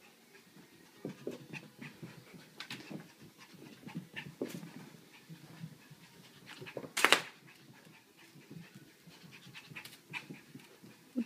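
A Papillon puppy panting, with scattered scuffling and tapping sounds and one loud, brief noise about seven seconds in.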